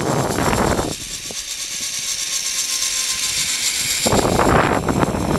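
Rushing wind buffeting a phone microphone during a zipline ride, over a steady high hiss of the trolley running along the cable. The rough wind noise drops out about a second in, leaving the hiss and a faint whine, and comes back near the end.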